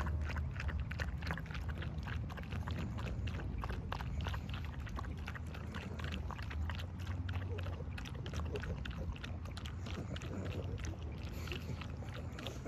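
Two pugs lapping cream from glass dessert cups: a quick, uneven run of wet tongue clicks and slurps, several a second, over a low steady rumble.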